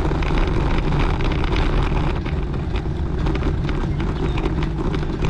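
Wind rumbling on the microphone, with tyre and road noise from a bicycle riding slowly over rough, patched asphalt. Scattered small clicks and knocks run through it.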